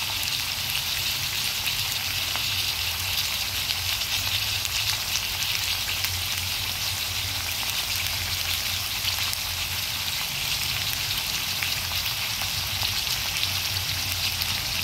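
Pork cutlets frying in oil in a steel pan, a steady sizzle with fine crackling spatter throughout.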